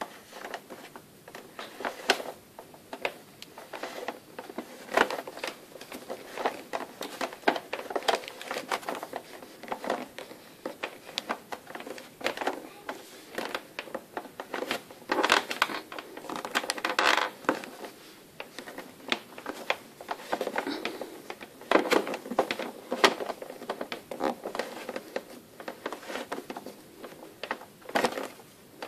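Power cable being fed by hand into the cord-storage hole in the base of a Moulinex i-Companion XL kitchen robot: irregular clicks, taps and rubbing of the cable and fingers against the plastic base.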